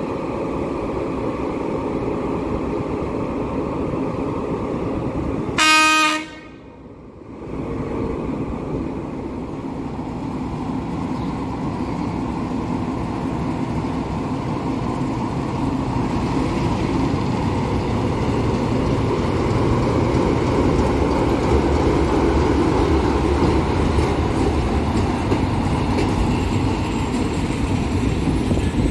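Class 060-DA diesel-electric locomotive running at a steady rumble, with one short, loud horn blast about six seconds in. In the second half the rumble grows louder as the locomotive and its double-deck coaches start moving.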